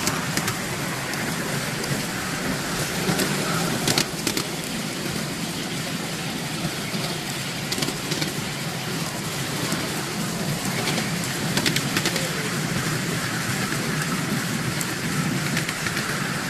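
Miniature railway train running along its track, heard from a passenger car: steady clatter of wheels on rails with a few sharp clicks.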